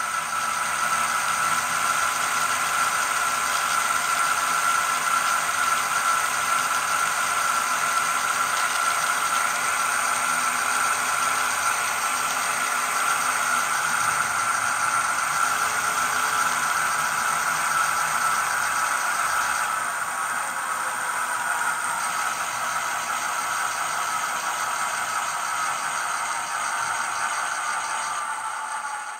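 Steady diesel locomotive engine sound played by a Digitrax SDXH167D sound decoder through a small sugar-cube speaker in an HO scale SD9 model, thin and tinny with a strong steady tone; it eases slightly about two-thirds of the way in.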